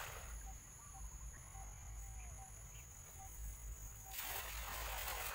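A weighted cast net hits the river surface about four seconds in with a spreading, hissing splash, and the tail of an earlier net splash fades at the start. Insects keep up a steady high buzz throughout.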